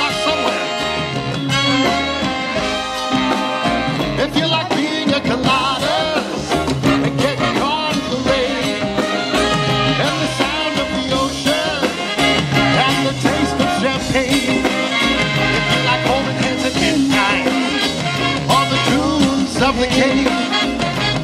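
Live swing band playing an upbeat number with a steady beat.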